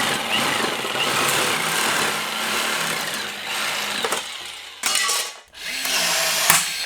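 A power tool working aluminum stock. It runs for about four seconds, then gives two shorter bursts.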